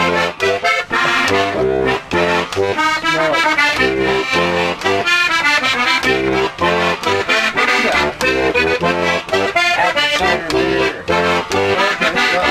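Squeeze box (accordion) being played: a lively tune of quick melody notes and chords over a regular, pulsing bass.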